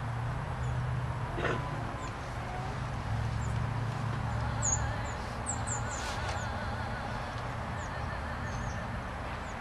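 Birds chirping, a cluster of short high chirps about halfway through, over a steady low rumble; a single knock about one and a half seconds in, and faint music with a wavering pitch coming in around the middle.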